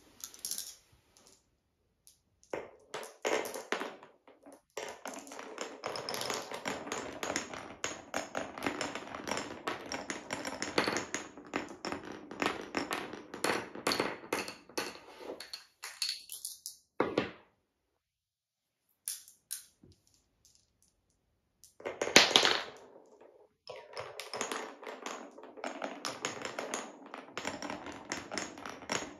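Glass marbles rolling and clacking through the grooves and tunnels of wooden Cuboro blocks: a long stretch of rapid, dense clattering that stops for a couple of seconds past the middle, then a single loud knock, then more rapid clattering.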